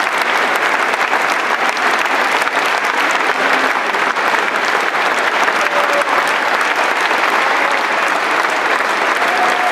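Large audience clapping steadily, a dense, even applause.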